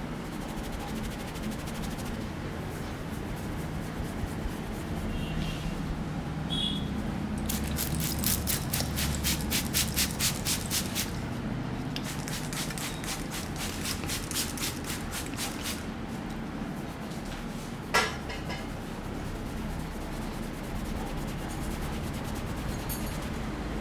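Hands striking the body in rhythmic massage strokes, about four a second, in two runs separated by a short pause. Near the end there is a single sharp crack.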